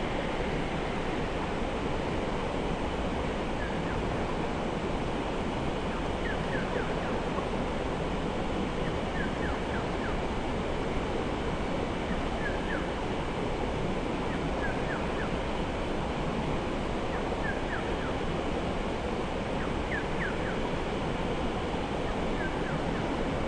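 Steady rushing of a flowing river. Faint high bird chirps come in little clusters of two to four, every two or three seconds.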